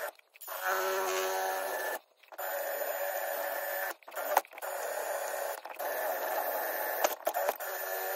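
A small rotary tool running steadily on the aluminium casting, giving a steady whine, which cuts out abruptly a few times.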